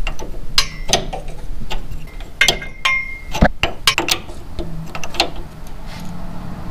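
Irregular metal clicks and clinks of an open-end wrench on an AN hose fitting as it is threaded on and tightened at the power steering rack, one clink ringing briefly about two and a half seconds in.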